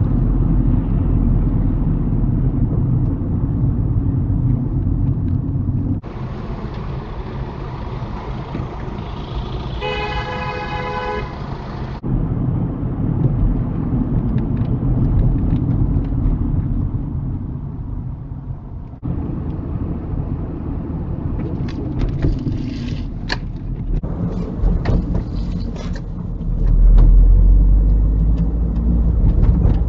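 Road and engine noise inside a moving car, recorded by a dash cam across several clips, with a car horn sounding once for about a second and a half roughly ten seconds in. Scattered clicks come in the last third.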